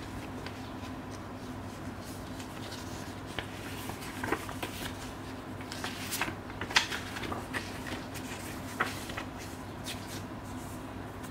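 Paper inserts and a folded booklet rustling and crackling as gloved hands handle and flip through them, in irregular bursts with a few sharper crackles, the loudest near the middle. A steady low hum runs underneath.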